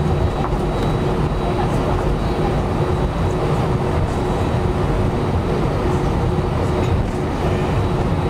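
Steady cabin noise of an Airbus A320 taxiing: an even low rumble from the jet engines and airframe, with a constant hum tone over it.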